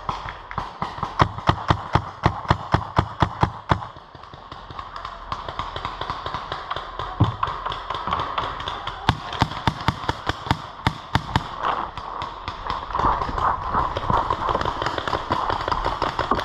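Paintball markers firing: a fast string of loud shots about a second in, lasting a few seconds, then scattered shots, some quieter and farther off.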